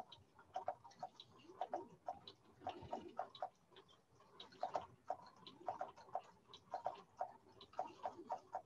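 Faint, irregular mechanical clicking, often in quick pairs, with a few brief whirring glides, from a homemade animatronic puppet's motors and linkages as it moves.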